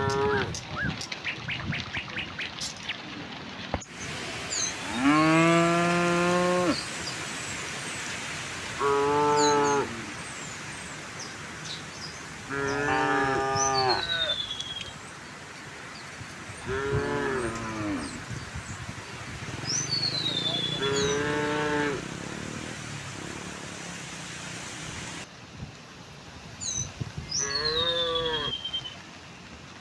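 Cattle mooing again and again, about six calls, each one to two seconds long, the first the longest. Between the moos a bird gives short falling whistled calls.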